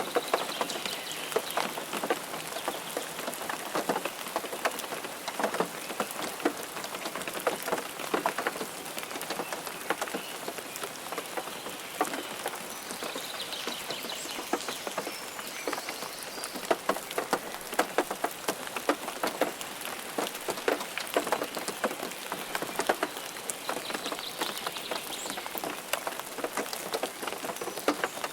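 Steady rain falling, with many close, sharp individual drops pattering onto a surface over the constant hiss of the downpour.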